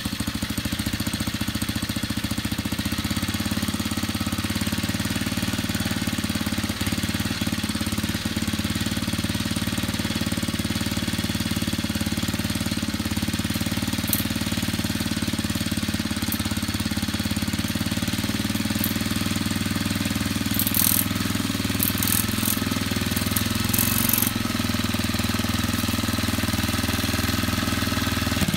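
Restored Scott Bonnar Model 38 lawn edger's small petrol engine running steadily, with a few short bursts of higher-pitched noise about three-quarters of the way in.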